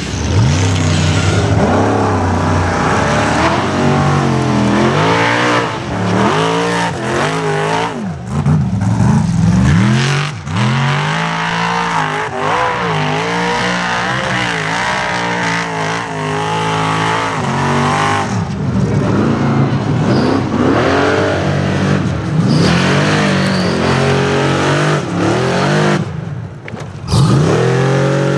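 Engines of tube-frame off-road racing buggies revving hard as they claw up a steep dirt hill, the pitch sweeping up and falling back over and over as the throttle is worked, with several buggies heard in turn.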